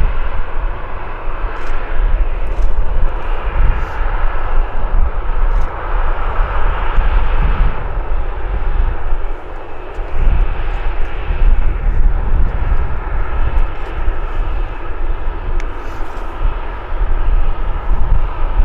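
Boeing 737-800 taxiing on idle thrust: its jet engines make a steady hiss with faint high tones over a heavy low rumble.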